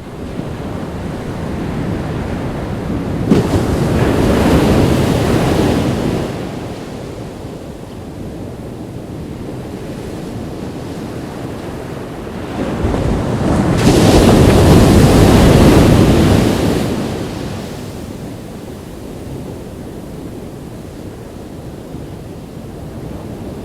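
Ocean waves breaking on a beach: two waves crash and wash in, about three seconds in and again about thirteen seconds in, each swelling and fading over a few seconds, with a steady surf hiss between them and some wind on the microphone.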